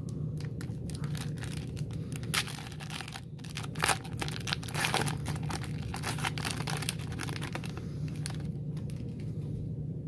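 Trading-card pack wrapper crinkling and tearing as it is opened by hand, with a few louder crackles in the middle; the crinkling dies down near the end.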